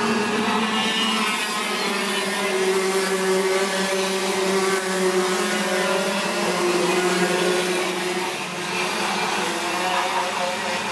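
Several racing kart engines buzzing at high revs as a pack of karts passes, their pitches shifting up and down.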